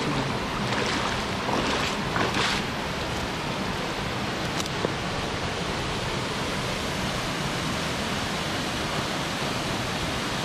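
Steady rush of a waterfall cascade, water pouring down over rock, with a few brief louder surges in the first couple of seconds.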